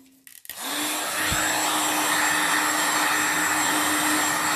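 Handheld gas torch lit and held over wet acrylic paint, burning with a loud, steady hiss that starts about half a second in.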